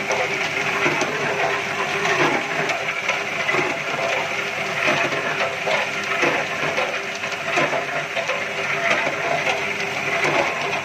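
Tube ice machine running on test: a steady mechanical din with many small clicks and knocks scattered through it.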